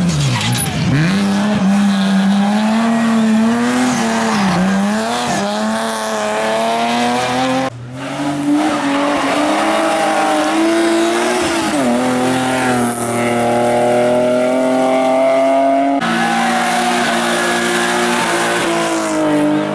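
Hillclimb race car engines at full throttle, pitch climbing and dropping with gear changes and lifts, with tyre squeal. The sound changes abruptly about eight seconds in and again about sixteen seconds in.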